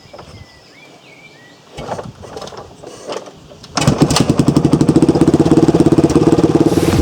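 Dirt bike engine starting about halfway through and then running with a rapid, even pulse, loud. Before it starts there are a few clattering knocks, and birds chirp faintly in the first seconds.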